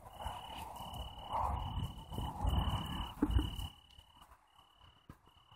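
An insect sings a high, steady note in repeated half-second pulses, about one a second. Low rumbling noise sits under it for the first three and a half seconds, then drops away.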